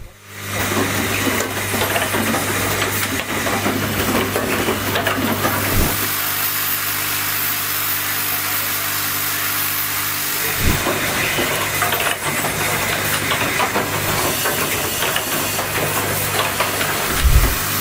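Automated cable holder terminal assembly machine running, with a steady hum and an air-like hiss. A thump comes roughly every five to six seconds as the machine cycles.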